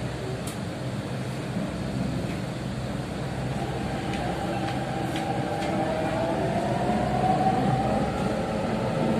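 Delhi Metro train running in the tunnel, heard from inside the carriage: a steady rumble and hiss, joined about four seconds in by a motor whine that rises slightly in pitch, the whole growing a little louder.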